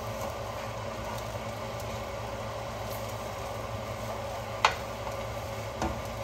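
Steady mechanical hum with a faint hiss over it. A single sharp clack, like something hard set down, comes about four and a half seconds in, and a lighter knock comes near the end.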